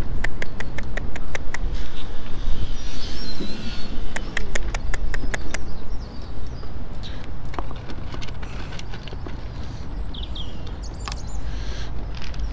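Small birds chirping briefly over a steady low rumble. Two runs of rapid clicks at about six a second come near the start and again around the middle.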